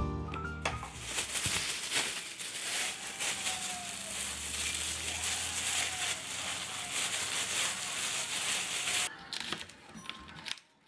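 Plastic bag crinkling steadily as a block of canned Spam is squeezed and crumbled inside it by hand. Near the end it gives way to a few separate knife clicks on a plastic cutting board as a green onion is cut.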